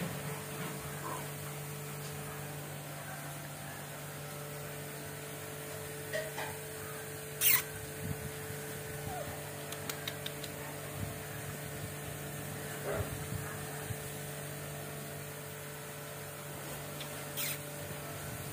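Golden retriever puppies making a few brief, scattered sounds over a steady electrical hum; the sharpest and loudest comes about seven and a half seconds in.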